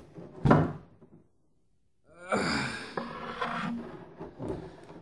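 Clear plastic blister packaging rustling and crinkling as an anime figure is worked free of it, with a sharp rustle about half a second in. From about two seconds in there are a man's breathy gasps of effort.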